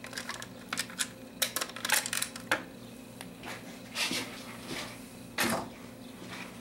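Small metal bolts and parts clicking and clinking as hands work loosened bolts free of a motorcycle's intake air assembly. There is a quick run of sharp clicks in the first two and a half seconds, then a few softer knocks.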